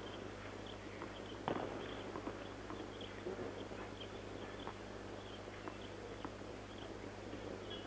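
Quiet tennis-stadium ambience between points, with scattered light knocks and clicks and one sharper knock about a second and a half in, over a steady low hum.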